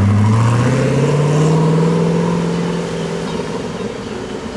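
Koenigsegg CCX's 4.7-litre twin-supercharged V8 accelerating away, its note rising through the first second or so, then holding steady and fading as the car drives off.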